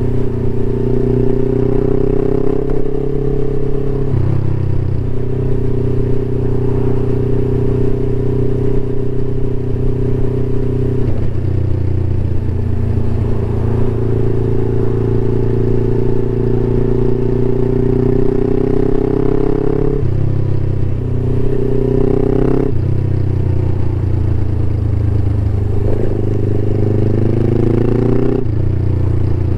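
Suzuki GS500E's parallel-twin engine through a Takkoni aftermarket exhaust, riding under way. The engine note climbs as the bike accelerates, drops abruptly at several gear changes, and climbs again.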